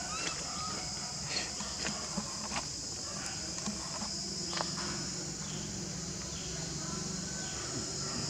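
Insects shrilling in a steady, unbroken high-pitched drone, over a low steady hum.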